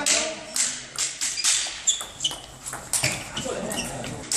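Table tennis ball being hit by bats and bouncing on the table in a fast doubles rally: a run of sharp clicks, about two a second, that stops around three seconds in.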